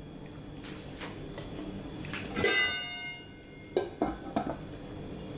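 A stainless steel lid put onto a cooking pan: one clang about two and a half seconds in that rings for about a second, then a few light clinks as the lid settles.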